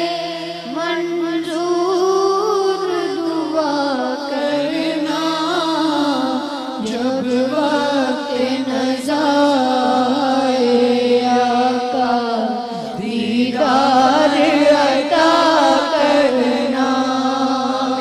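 Devotional naat singing: a solo voice sings a slow, drawn-out, wavering melody over a steady low held accompaniment.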